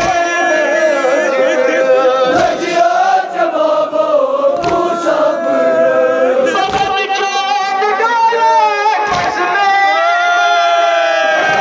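Kashmiri noha sung unaccompanied by male voices, a lead singer carrying a slow, mournful melody with others joining in. A dull low thump lands about every two and a half seconds, in time with the singing, typical of the chest-beating (matam) that goes with noha.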